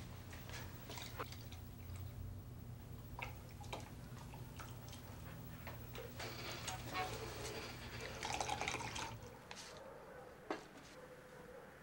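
Milk poured from a carton into a cup, with small clinks and knocks of kitchenware, over a low steady hum that fades about nine seconds in. A single sharp knock comes near the end.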